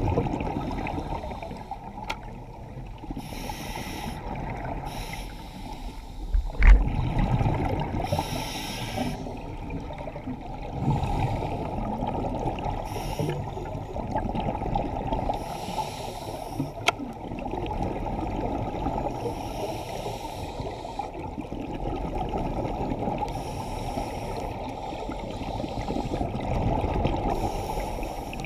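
Underwater sound picked up by a scuba diver's camera: a steady low bubbling rush with a burst of hiss every three to four seconds, typical of breathing through a scuba regulator. A single sharp knock comes about a quarter of the way in.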